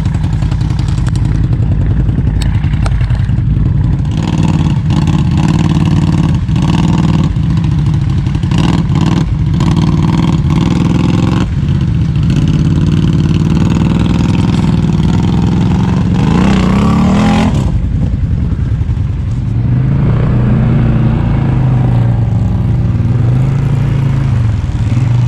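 Off-road vehicle engine running steadily, with scattered knocks and clatter. About two-thirds of the way through it revs up sharply, then settles back to an uneven, lower running note.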